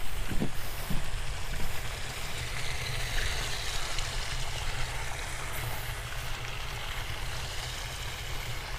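Steady wind noise on the microphone, a low rumble under an even outdoor hiss.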